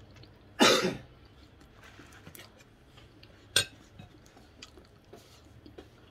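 Mouth sounds of a person eating roasted chicken by hand: a loud, short breathy burst about half a second in as she sucks and bites at the meat, then chewing with small wet clicks and one sharp smack a little past the middle.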